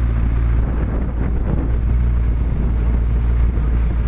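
McLaren MP4-12C's twin-turbo V8 running steadily without revving, a deep low rumble, with wind buffeting the microphone.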